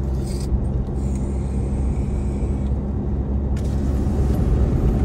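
A car driving at speed, heard from inside the cabin: a steady low rumble.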